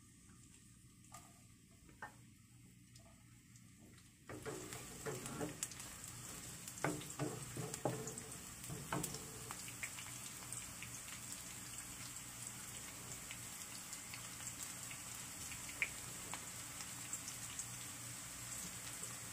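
Seasonings sautéing in hot oil in a pan: the sizzle starts suddenly about four seconds in as the ingredients go in. A few clinks of stirring follow, then a steady sizzle.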